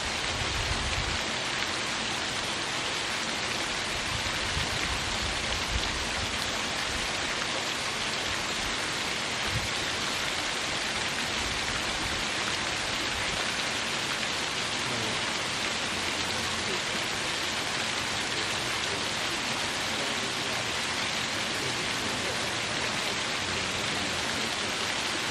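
Small waterfall: water splashing and pouring over rocks in a steady, even hiss, strongest in the high range. A few low rumbles come through in the first ten seconds or so.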